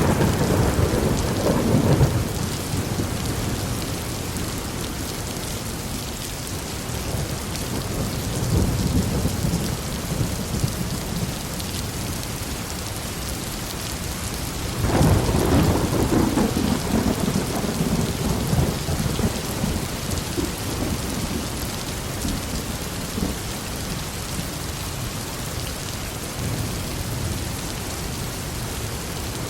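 Steady rain falling through a thunderstorm, with low rolls of thunder: one dying away in the first two seconds, the loudest rolling in about halfway through and fading over several seconds, and fainter rumbles between.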